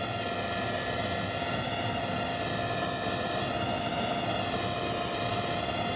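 Old Russian twin-turbine transport helicopter running on the ground just after landing: a steady turbine whine made of several even tones over rushing rotor and engine noise.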